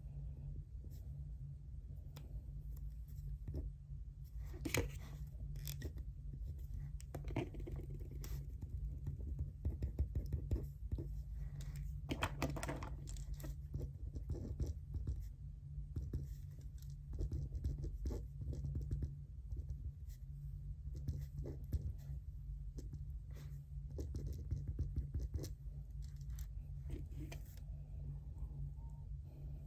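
Pen scratching on paper and papers being handled at a desk: many small scratches and clicks, with a few louder rustles or scrapes about five and twelve seconds in, over a steady low hum.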